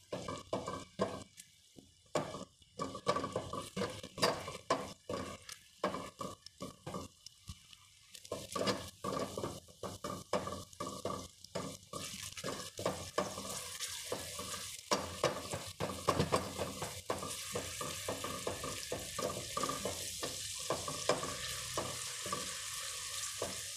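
Minced garlic frying in hot oil in a nonstick pan, stirred with a silicone spatula: repeated scraping strokes, with a sizzle that builds about halfway through and turns steady.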